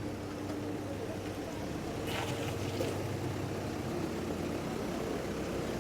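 Engine idling steadily, a low, even hum with a faint brief rustle about two seconds in.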